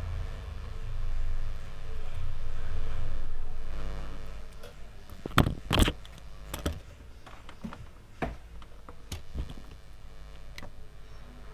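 Scattered sharp clicks and taps from handling a feature phone's plastic casing and parts, the loudest a close pair about halfway through. A low rumble swells under them in the first few seconds and then fades.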